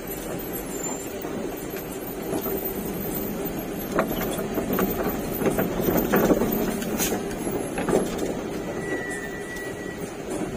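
Truck running on a rough road, with a steady engine hum and a cluster of knocks and rattles about halfway through. A brief high squeal comes near the end.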